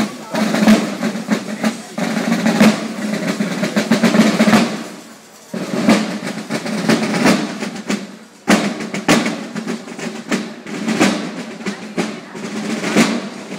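Side drums playing a Basel drum march, rapid strokes and rolls, with short breaks about five and eight seconds in.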